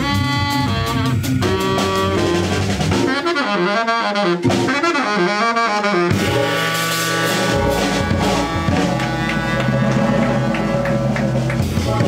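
Baritone saxophone playing a jazz tune over drum kit and keyboard accompaniment. The low accompaniment drops out for about three seconds in the middle while the saxophone runs on, then returns under longer held notes.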